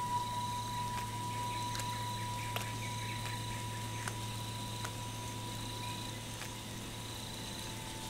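Eerie horror-film ambience: a steady high tone slowly fading over a low hum, with insect-like chirping and a few scattered faint clicks.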